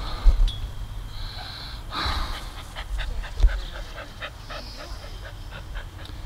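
Cairn terrier panting quickly, with short breaths at about four a second.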